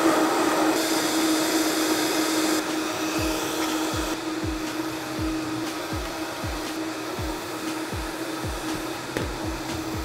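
VitaPrep high-power blender running steadily with a constant whir, blending lime curd. From about three seconds in, a low thud repeats about twice a second under it.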